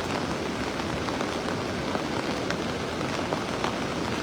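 Steady, unbroken rush of water from the flood, with a few faint ticks scattered through it.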